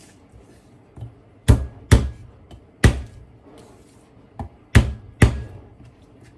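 Garlic being chopped with a knife on a cutting board: about eight sharp, uneven knocks, several coming in quick pairs.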